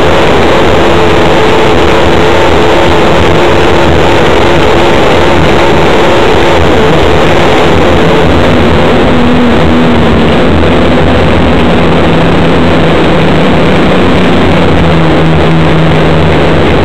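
Grand Prix hydroplane's engine running hard, heard from inside the cockpit, very loud and overloading the recording, over a dense rush of wind and water. The engine note shifts in pitch about halfway through.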